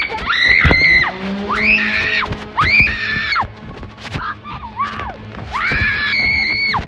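A woman screaming in fright: a string of about five shrill, very high-pitched shrieks in the whistle register, each about a second long.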